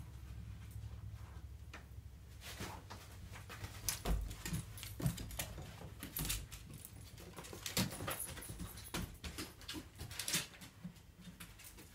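Small dog's claws clicking and skittering on a hardwood floor in quick, irregular steps as it hunts for a scent, with a dull thump about four seconds in as it lands from jumping down off the bed.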